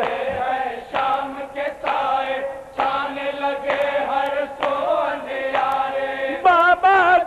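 Men's voices chanting a noha, an Urdu mourning lament, in chorus, in short sung phrases about a second apart.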